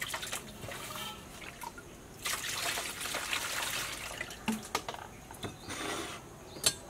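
Water sloshing and dripping in a large metal basin as a fish is washed by hand, with a sharp click near the end.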